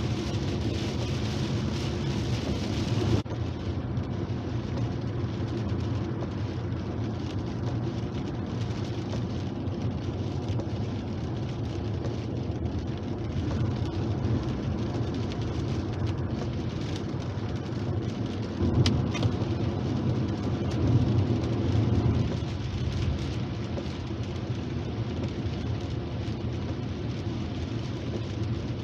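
Inside a moving car on a wet motorway in heavy rain: steady tyre and road noise with the engine running, and rain on the windscreen. It grows a little louder for a few seconds about two-thirds of the way through.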